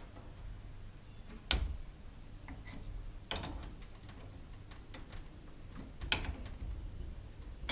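Steel winding rods clicking against the winding cone of a garage door torsion spring as it is wound up: a few sharp metallic clicks a couple of seconds apart, each ringing briefly.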